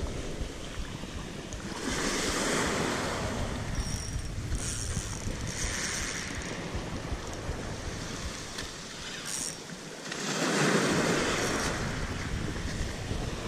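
Sea waves washing in around the groyne, with wind rumbling on the microphone. There are two louder surges of water, about two seconds in and again about ten seconds in.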